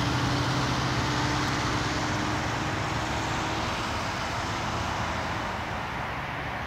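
Steady engine roar with a low hum, slowly fading; the hum dies away about halfway through.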